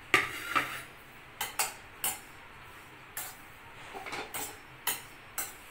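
Metal spatula knocking and scraping against a large kadai as bread cubes are stirred and lightly toasted in it: about ten sharp, irregular clinks, the loudest near the start.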